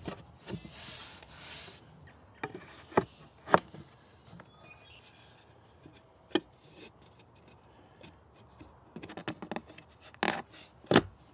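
Cedar boards knocking and clicking against each other and the table frame as they are set into place by hand, with a short scraping rub near the start and a quick run of knocks near the end.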